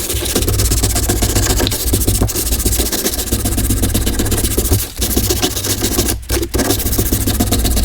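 Sanding a 1/4-inch angle bracket to roughen its surface so something will stick to it: a steady rough noise over a low hum, broken by brief gaps about five and six seconds in.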